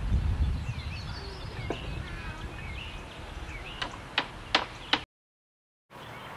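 Scraps of wood clacking together four times in quick succession as they are handled and stacked, over birds chirping. A low wind rumble sits on the microphone near the start, and the sound cuts out completely for under a second near the end.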